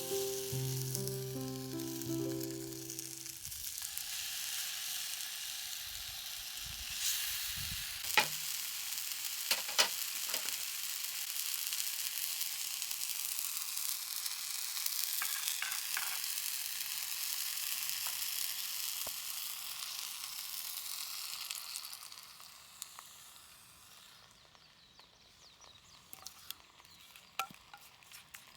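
Food sizzling and frying on a hot pan or griddle, a steady hiss with a few sharp utensil clicks, dying down to faint ticks near the end. Background music fades out in the first few seconds.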